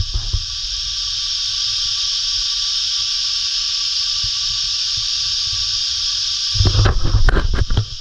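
Loud cicada chorus: a steady, high-pitched shrill drone. Near the end, about a second of low rumbling and knocks on the microphone.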